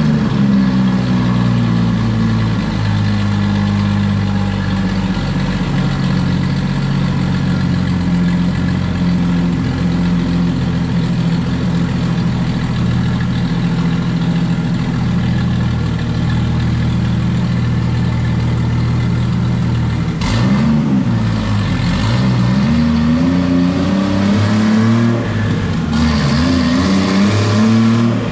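Turbocharged Jeep Cherokee XJ engine running at a steady speed, then revved up and down several times in short blips from about twenty seconds in.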